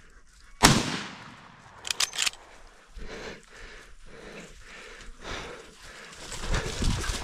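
A single rifle shot about half a second in, sharp and loud with a short fading tail. It is followed about a second later by a quick cluster of three sharp clicks.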